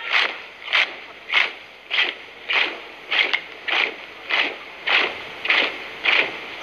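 A marching troop's feet striking the ground in unison, in an even rhythm of a little under two steps a second.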